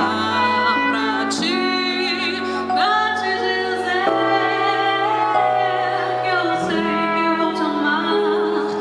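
A woman singing a slow bossa-nova ballad, with a vibrato on held notes, over sustained electronic keyboard chords that change every few seconds, with a trumpet playing along.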